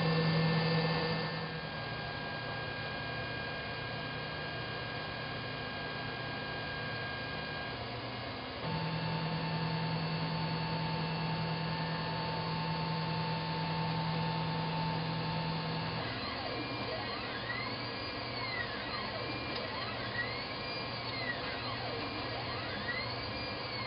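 3D printer running as a print begins: a steady hum and whine from its fans and motors, with the tone shifting a couple of times. From about two-thirds of the way in, the stepper motors whine up and down in pitch over and over as the print head moves back and forth laying down the first layer.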